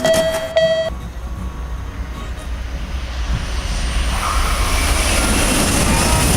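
Railroad crossing alarm bell clanging twice more, about two strokes a second, and stopping about a second in. A train's rumble then builds and grows steadily louder as it approaches.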